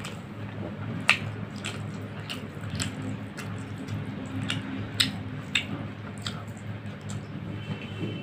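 Close-miked eating with the hand: rice squished and mixed with the fingers, chewing, and wet mouth clicks and smacks at irregular intervals, over a steady low hum.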